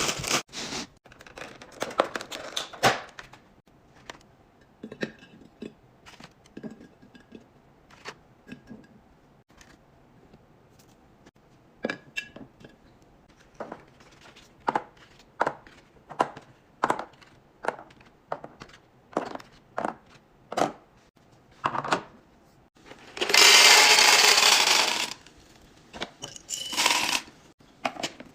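Containers and packaging being handled and set down while restocking a fridge: a string of separate taps, clicks and clinks, with a louder rustling, noisy stretch of about two seconds near the end.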